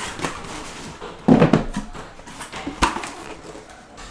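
Cardboard case of shrink-wrapped trading-card boxes being opened and unpacked. There are cardboard scrapes and thumps, the loudest about a second and a half in, and a sharp knock just before three seconds.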